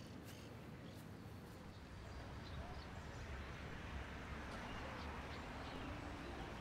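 Quiet outdoor ambience: a steady wash of background noise that grows slightly louder about two seconds in, with a few faint bird chirps.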